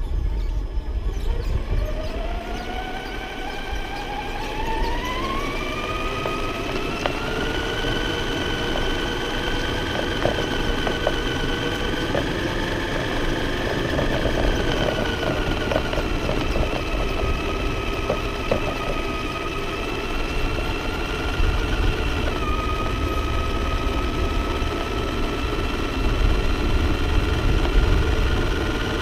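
RC monster truck's motor and drivetrain whining. The whine rises steadily in pitch over the first several seconds as the truck speeds up, then holds a fairly steady pitch with small dips, over a continuous low rumble.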